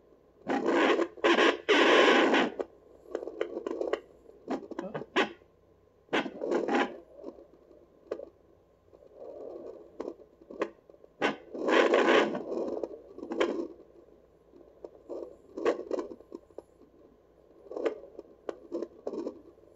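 Handheld fetal doppler's speaker giving irregular scratchy, scraping noise as its probe is moved over a pregnant dog's furry belly. It comes as uneven bursts of rubbing with sharp clicks, with no steady beat.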